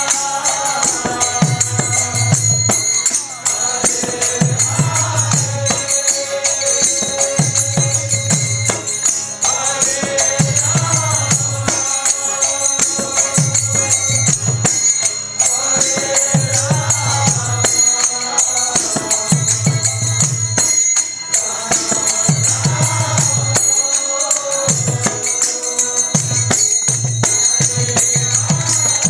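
Live kirtan: voices chanting a devotional mantra over deep, repeated beats of two mridanga drums and the steady jingle of karatalas (small hand cymbals).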